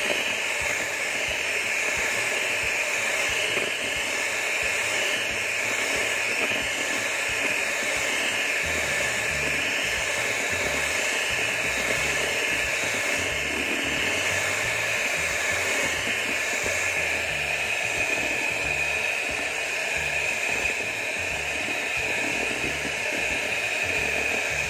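Electric hand mixer running at a steady speed, a continuous whine as its beaters whisk eggs into a froth in a plastic bowl.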